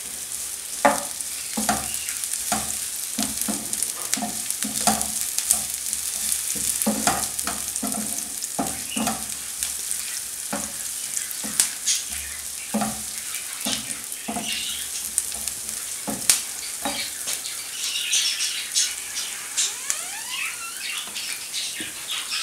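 Sliced onions sizzling in hot oil in a non-stick frying pan, with a wooden spatula stirring them and knocking against the pan again and again. The stirring stops near the end while the sizzle goes on.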